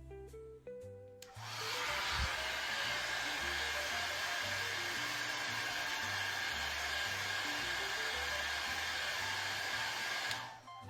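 An electric hot-air blower switches on a little over a second in and runs at a steady pitch with a faint whine, then switches off shortly before the end. Guitar music plays before and after it.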